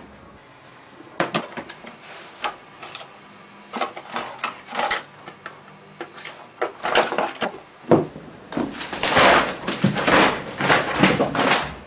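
Handling noise as objects are rummaged through and moved: scattered knocks, clicks and rustles, growing busier and louder over the last few seconds.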